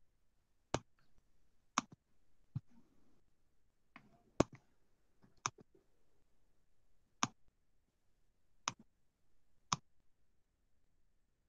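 Computer mouse button clicks: eight sharp single clicks, irregularly spaced about a second apart.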